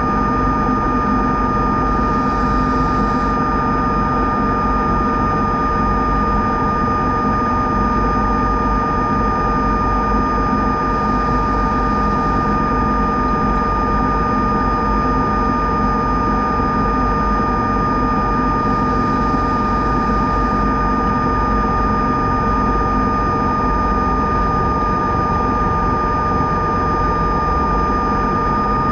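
Diver propulsion vehicle (underwater scooter) running steadily underwater: a constant electric-motor whine over a low churning noise. Three short hisses come and go, about two, eleven and nineteen seconds in.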